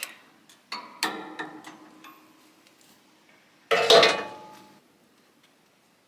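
Metal clicks and clinks from the steel parts of a Woodland Mills HM126 band sawmill being worked by hand, each with a short ring. About four seconds in, one loud metallic clank rings out for about a second.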